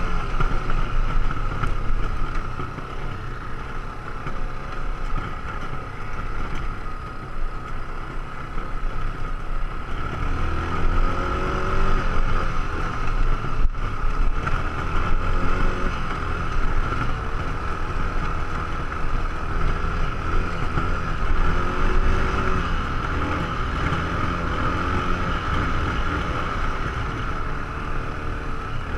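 ATV engine running on the move, its pitch rising and falling with the throttle from about a third of the way in, over a steady low rumble and a high whine.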